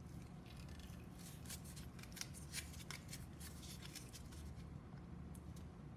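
Faint, scratchy scraping of a wooden stir stick dragging and scooping mixed JB Weld epoxy across cardboard, a loose run of small scrapes and clicks.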